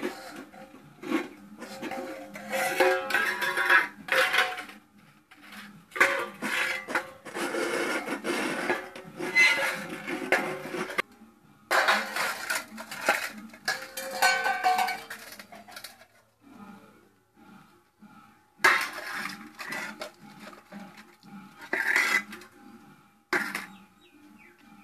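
Stainless steel bowls and plates clattering and ringing against each other and a concrete floor as a small child handles and stacks them. The clatter comes in repeated bursts with short quiet gaps.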